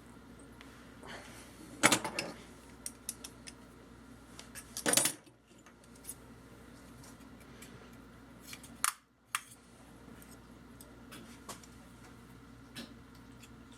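Small metal tools and parts clinking and clattering as they are handled on a workbench: a sharp clack about two seconds in followed by a few light ticks, a short rattle about five seconds in, and two clicks a little before the tenth second.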